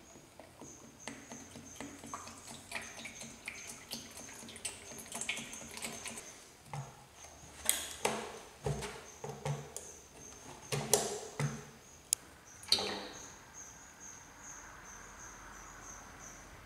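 ISO 46 hydraulic oil being poured from a 5-gallon bucket's built-in spigot into a car lift's hydraulic reservoir, with scattered clicks and several louder knocks from the bucket and spigot being handled, heaviest in the middle.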